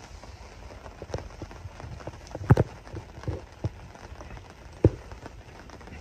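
Scattered raindrops landing one by one at an irregular pace, with two louder drops about two and a half and five seconds in.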